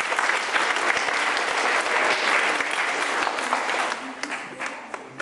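Audience applauding, a dense patter of many hands clapping that thins out and dies away about four seconds in.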